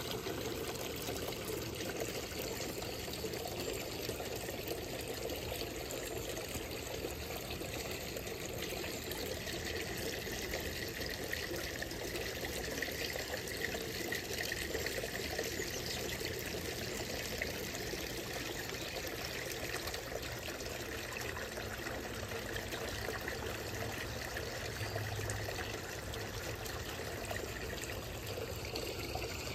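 Water pouring and trickling steadily into a garden fish pond.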